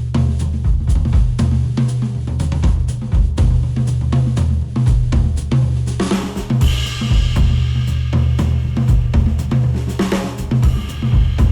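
Instrumental music with a full drum kit (kick, snare, hi-hat, cymbals) over heavy bass, played through HIFIMAN planar headphones and picked up by microphones at the earcups. About six seconds in, the cymbals and high end open up.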